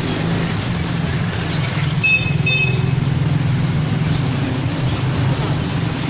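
A steady low mechanical drone, with two short high-pitched squeaks a little over two seconds in.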